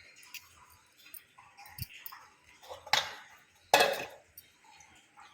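Light clicks and taps of kitchen utensils and spice containers as spices are spooned into a bowl, with two louder short clatters about three and four seconds in.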